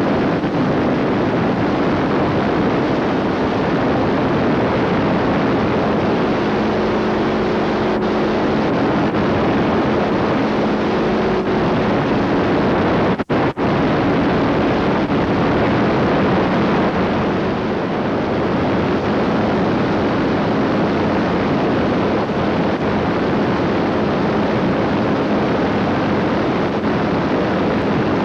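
Rotax 582 two-stroke engine of an ultralight trike running steadily in flight, heard through the trike-mounted camcorder under heavy wind rush on the microphone. The sound drops out for a split second about halfway through.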